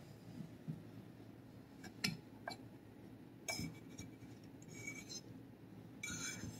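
Metal fork clinking and scraping on a ceramic plate while cutting a bite of soft layered dessert: a few light clinks about two seconds in, then short scrapes near the middle and again near the end.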